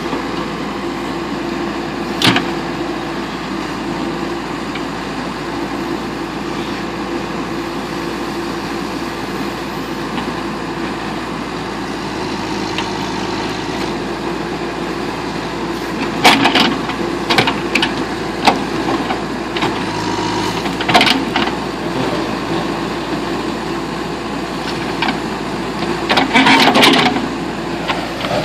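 Backhoe engine running steadily under load while digging out a tree stump, with sharp metallic knocks and clanks from the working machine: one a couple of seconds in, a cluster past the middle, and the loudest burst near the end.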